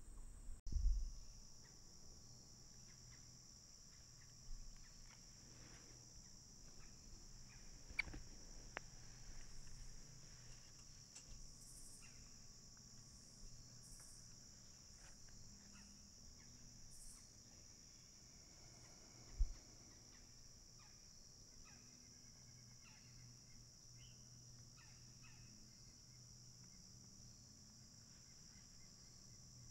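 Steady high-pitched chorus of insects in a field. There are a few faint knocks, the loudest a low thump less than a second in and another about twenty seconds in.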